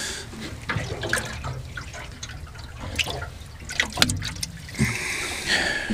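Water splashing and trickling as a hand works in a boat's live-bait tank to catch a live baitfish, with a few light knocks against the boat.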